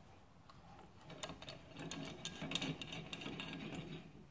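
A threaded screw clamp compressing a transmission servo spring being backed off to release the spring after the snap ring is seated: a run of quick metallic clicks and rattles from about a second in until near the end.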